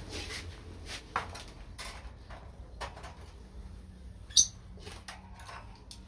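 Light clicks and knocks of a small wire bird carrier cage being handled, with one short, sharp, high-pitched bird chirp about four seconds in.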